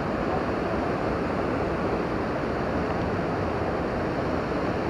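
A mountain river rushing over rocks: a steady, even noise of flowing water.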